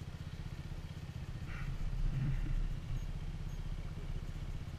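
Dirt bike engine idling with a steady, even pulse, getting a little louder about two seconds in.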